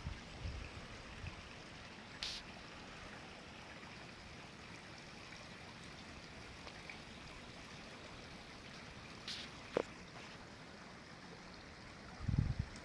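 Rain-swollen creek running high after heavy storms: a faint, steady rush of flowing water. A brief low rumble comes near the end.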